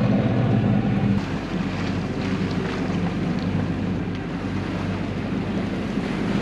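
A sailboat's inboard engine running steadily under way, a low even drone that eases slightly about a second in, over wind buffeting the microphone and the wash of sea around the hull.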